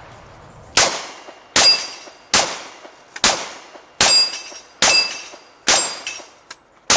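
Glock 30 subcompact .45 ACP pistol firing about eight shots in steady succession, a little under a second apart, at steel plates; most shots are followed by the ring of a plate being hit.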